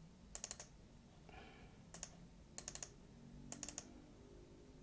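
Quiet clicking at a computer: four short clusters of two to four rapid clicks, from a mouse and keys being worked while navigating settings dialogs.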